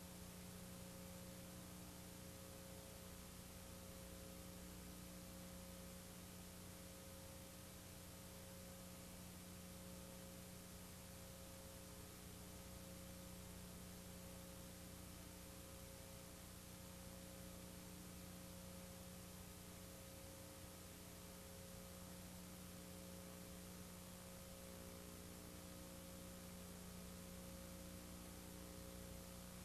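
Near silence: a faint, steady electrical hum over a light hiss.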